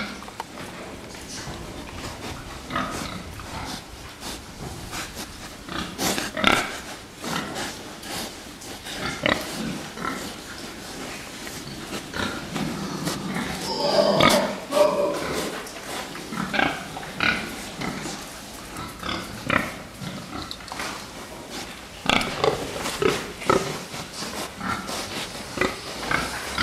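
Fattening pigs crowded in a pen, grunting in short irregular calls, with one louder, longer call about halfway through and a few sharp knocks.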